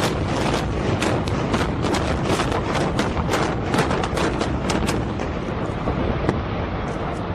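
Explosive building demolition: a rapid string of sharp blasts from detonating charges, about three a second, over a continuous heavy rumble. The blasts thin out after about five seconds while the rumble carries on.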